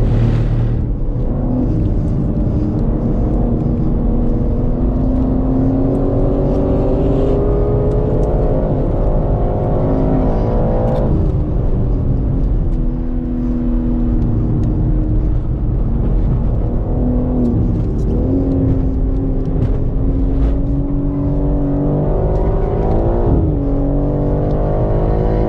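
In-cabin sound of a 2022 BMW M3 Competition's twin-turbo 3.0-litre straight-six under hard acceleration on track. The engine note climbs steadily for about ten seconds, drops sharply as the driver comes off the throttle, then pulls up again with shorter dips later on.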